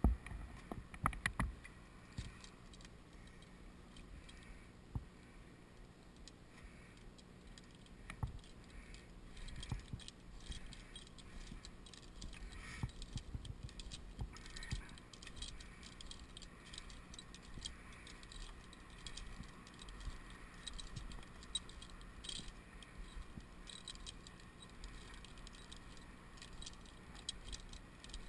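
Metal carabiners and climbing hardware on a tree climber's harness clinking and jangling as they are handled, with scattered light clicks and a few louder knocks near the start.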